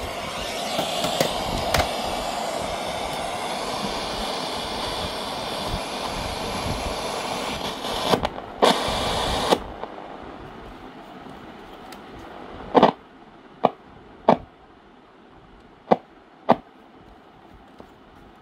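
National FM45 radio-cassette recorder's radio giving noisy, hissing reception, unclear for lack of an antenna; the sound cuts off suddenly about ten seconds in. Then several sharp clicks, spaced out over a few seconds.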